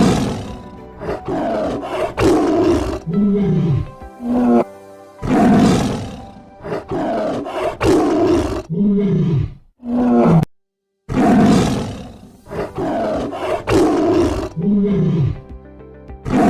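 Tiger roaring: a loud roar followed by a growl that dips and rises in pitch, repeated about three times with a short silent break just past the middle.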